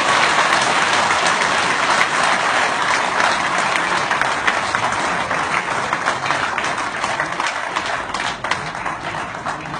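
An audience applauding loudly as a dense wash of clapping that begins just before and gradually thins out toward the end.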